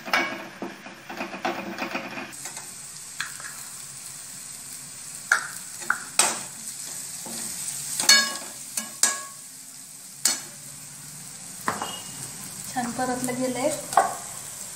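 Slotted metal spatula scraping and tapping a metal kadhai while stirring green chilli, coriander and garlic paste with urad dal frying in oil, over a steady sizzle. The strokes come as irregular sharp clicks and scrapes.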